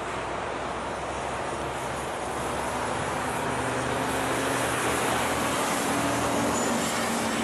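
Jet engines of a four-engine Boeing 747 landing on a wet runway, a steady rushing noise with a low hum that grows louder from about halfway through as the aircraft comes closer.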